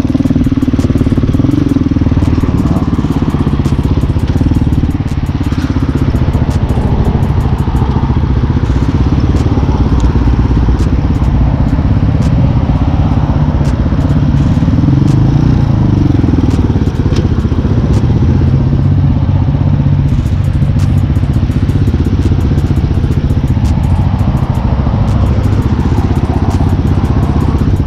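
Hawk 250 dual-sport motorcycle's single-cylinder four-stroke engine running at low speed through town, with its pitch rising and falling briefly about halfway as the bike pulls away from an intersection.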